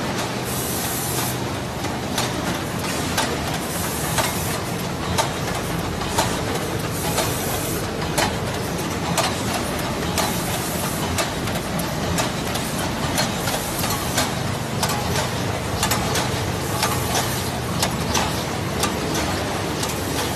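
Several automatic packaging machines running together: a steady mechanical hum with frequent irregular clacks and knocks from their moving parts, and a short burst of air hiss about a second in.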